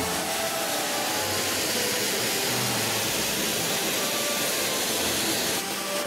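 Steady rushing hiss of water running under the ice of a frozen waterfall. It cuts off suddenly near the end.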